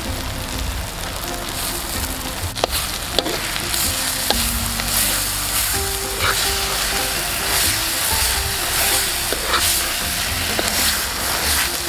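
Onion-tomato masala sizzling as it fries in an earthenware pot, stirred with a metal spoon that scrapes the pot and makes a few sharp clicks.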